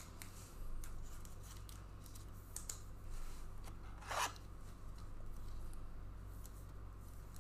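Trading cards and their packaging being handled: faint rustling, scrapes and small clicks, with one louder brief scrape or tear about four seconds in.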